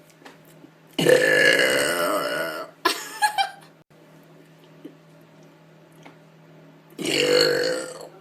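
A woman burping twice: a long burp about a second in that lasts nearly two seconds, then a shorter one about a second long near the end.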